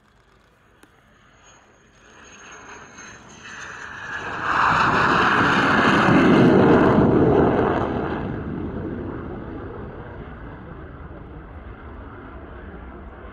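Belgian Air Force F-16 fighter jet, with its Pratt & Whitney F100 turbofan, making a low pass with gear down. The jet noise swells to a loud peak as it goes by, then fades away as it flies off. A faint high whine falls slightly in pitch as it approaches.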